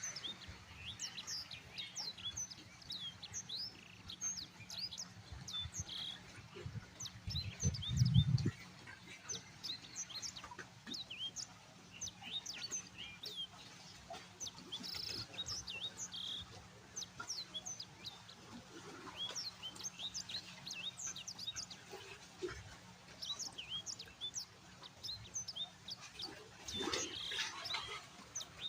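Many small birds chirping: a steady stream of short, high, down-slurred chirps overlapping throughout. About eight seconds in there is a brief low thump, the loudest moment, and a denser flurry of calls comes near the end.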